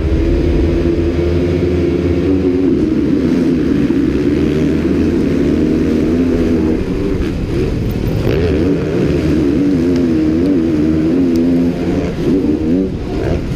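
KTM motocross bike engine revving hard among other motocross bikes, its pitch rising and falling constantly as the throttle opens and closes through the gears.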